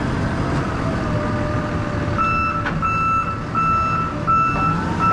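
A Taylor forklift's backup alarm starts beeping about two seconds in, with five even beeps in the last three seconds, over the forklift's engine running.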